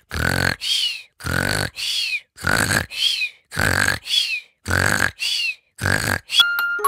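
A cat's rough, rumbling breaths in a steady rhythm, about two a second, some ending in a faint falling whistle. Light chime music comes in near the end.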